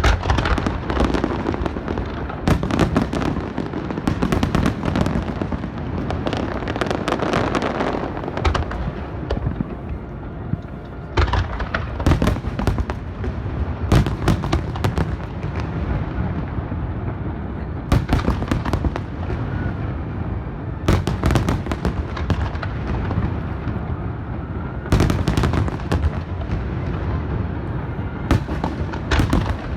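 Aerial fireworks shells bursting without pause: a continuous run of deep booms, with clusters of sharp crackling reports every few seconds.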